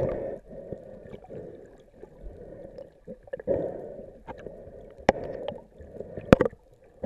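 Muffled underwater sloshing and gurgling of seawater, heard through an underwater camera, swelling and fading in waves, with two sharp clicks late on.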